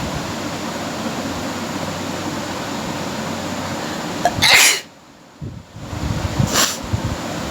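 A person sneezes once, sharp and loud, about four and a half seconds in, and a shorter, fainter burst follows about two seconds later. A steady background hiss runs under it.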